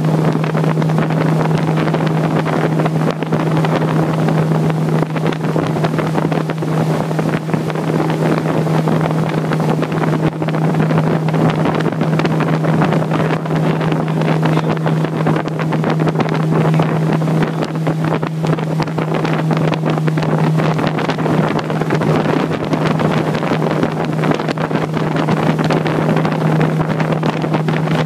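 Motorboat engine running at a steady speed with a constant low hum, under heavy wind noise on the microphone as the boat moves.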